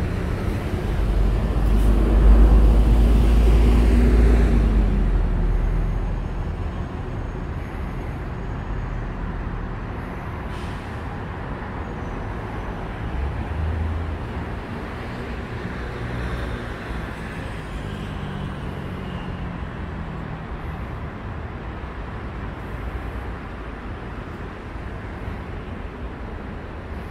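City traffic: a heavy motor vehicle rumbles past close by for the first few seconds, its engine tone dropping in pitch as it fades by about six seconds, followed by a steady background hum of road traffic.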